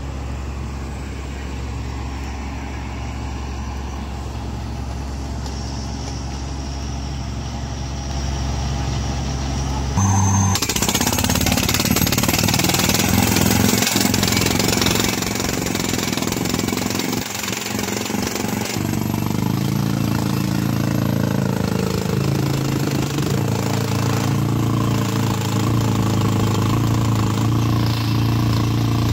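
Truck-mounted borewell drilling rig running steadily with a low engine tone. About ten seconds in it changes suddenly to loud compressed-air drilling, with a hiss and rattle as air blows dust and rock cuttings up out of the borehole.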